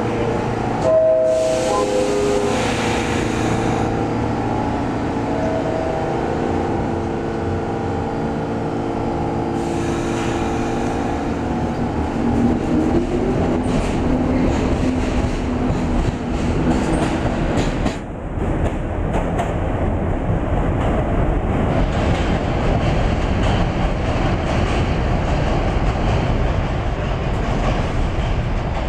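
Pullman Standard R46 subway train at a station. Near the start there are short steady tones and a hiss as the doors close, then the train pulls out with a rising motor whine about twelve seconds in, followed by a steady rumble of wheels on rail.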